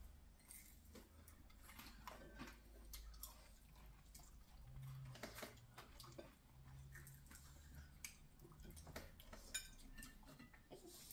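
Quiet dinner-table sounds: faint, scattered clicks of plates and cutlery and small eating noises, with one sharper click near the end.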